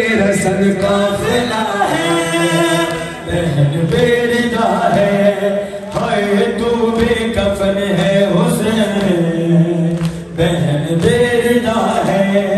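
Unaccompanied voices chanting a mournful Shia lament (a noha) in long sung phrases, with brief breaths between them about three, six and ten seconds in.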